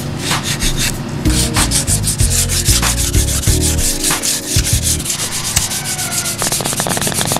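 Hand sanding of primed plastic door trim with 400-grit sandpaper: rapid back-and-forth rubbing strokes of paper on the smooth primer.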